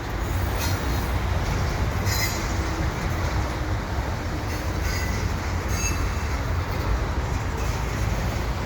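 Double-stack container cars of a freight train rolling past, a steady rumble of steel wheels on the rails, with a few brief high-pitched wheel squeals.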